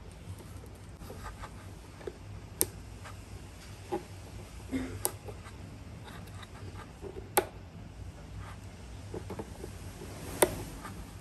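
Hands handling a blender and its packaging: scattered sharp clicks and light knocks, five of them clearer than the rest, among faint scrapes, over a low steady hum.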